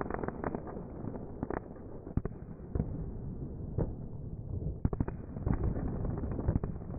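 Fireworks going off: a crackle of many quick bangs over a steady rumble, thinning to a few single bangs in the middle and thickening again about five seconds in.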